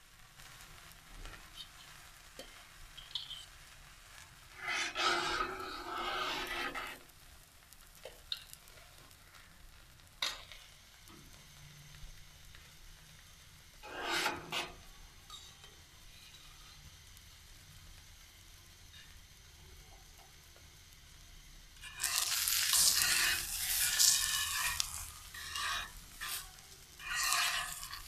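Flatbread dough cooking on a hot iron tawa: several separate bursts of sizzling and rubbing as the bread is handled on the griddle, with quiet stretches between. The longest and loudest burst comes about three-quarters of the way through.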